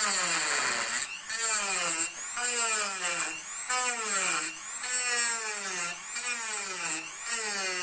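Small battery-powered cutting tool grinding into a tin cat-food can. About once a second the motor's pitch drops as the tool bites into the metal, then picks back up with a scrape.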